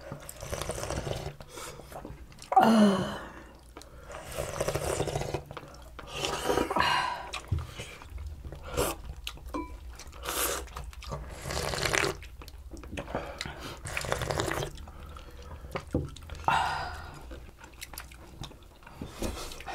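People slurping hot pollack stew broth and chewing, in irregular bursts with small clicks of spoons and chopsticks. The loudest is one long slurp with a falling pitch about two and a half seconds in.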